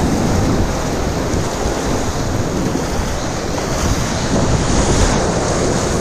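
Whitewater rapid rushing and crashing close around a kayak, heard from a camera mounted low on the boat as one steady, loud wash of water noise.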